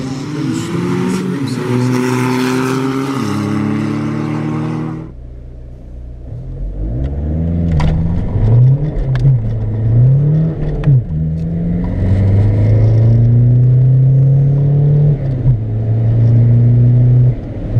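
Volkswagen 1.9 TDI turbodiesel engines at full throttle, in two clips. First a car pulls away hard with its engine note rising. After a cut about five seconds in, a car accelerates through the gears, its pitch climbing and dropping back at each shift, then holding high with one more shift near the end.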